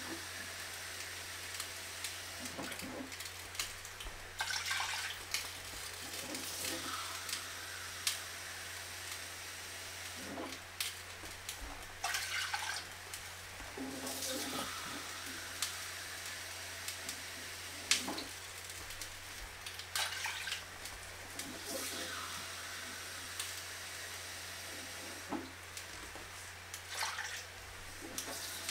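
Water being run into a glass measuring cup and poured into a stainless steel pot, in short splashes every few seconds, with a few sharp knocks.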